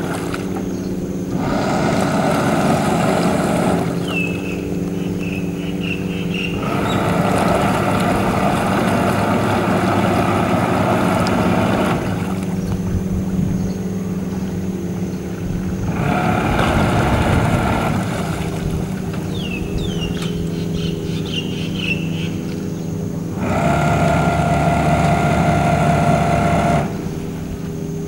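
A sailing yacht's inboard engine running at low speed while the boat manoeuvres, a steady low hum. Four times, louder, higher noise comes in for a few seconds and then cuts off suddenly.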